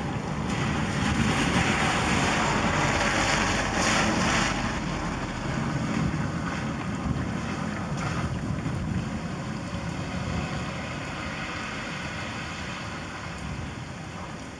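Thunder rolling during a night thunderstorm: a long, deep rumble that swells about half a second in and then fades slowly away.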